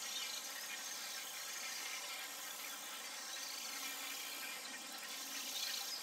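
Steady chorus of insects, a continuous high hiss with no clear breaks or beats.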